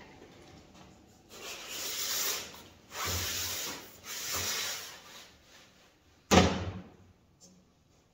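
Three scraping strokes on stainless steel sheet, each about a second long, followed by a single sharp knock about six seconds in.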